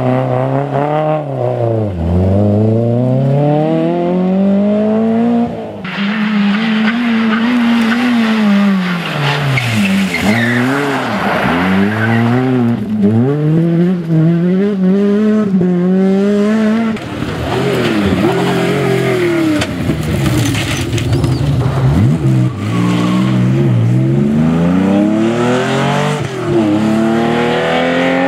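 Rally car engines revving hard, their pitch climbing and dropping again and again with gear changes and lifts off the throttle, with tyres skidding on loose gravel.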